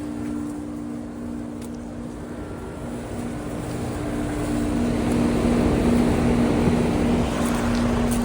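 Heat pump outdoor unit running: a steady two-tone compressor hum under a rushing fan-and-airflow noise that grows louder from about three seconds in. One of the hum tones fades out near the end.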